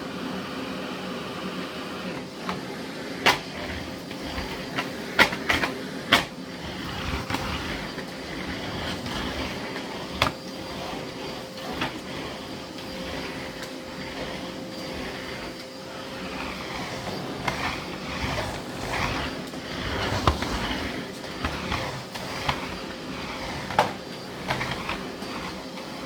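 Miele Blizzard CX1 bagless cylinder vacuum cleaner running steadily with a constant hum, broken now and then by sharp clicks and knocks from the floor head and debris on the garage floor.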